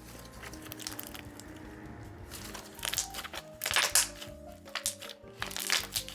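Slime being played with by hand, making clusters of crackling, popping clicks that come thicker and louder from about halfway in, over soft background music.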